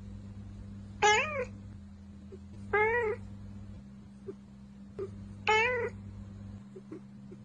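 Domestic cat meowing three times: about a second in, near the three-second mark and about halfway through. Each meow is short, about half a second, rising then falling in pitch.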